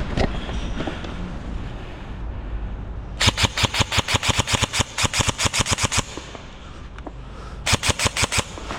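Airsoft gun firing on full auto: a rapid burst of about three seconds a few seconds in, then a shorter burst near the end.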